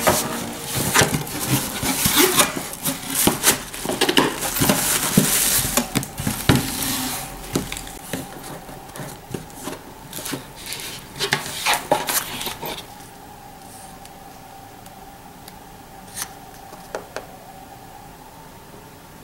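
Cardboard packaging being opened and handled on a table: a shipping box's flaps and a white product box's lid sliding, scraping and knocking, with paper rustling. About two-thirds of the way in it goes quieter, leaving a faint steady hum and a few soft paper flicks as a booklet's pages are turned.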